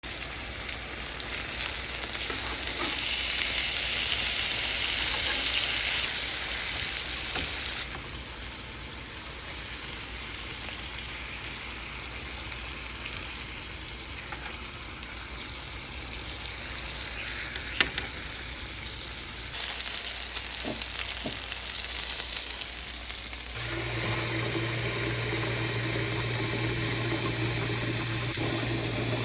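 Chicken breasts frying in butter and oil in a pan: a steady sizzle that drops in level about a third of the way in and comes back loud later. A single sharp click past halfway, and a steady low hum that joins in near the end.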